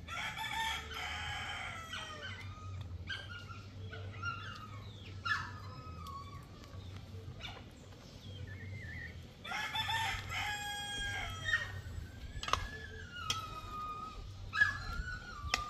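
A rooster crowing twice, a long call at the start and another about ten seconds in, with shorter calls in between. A few sharp knocks come near the end, the loudest just before it closes.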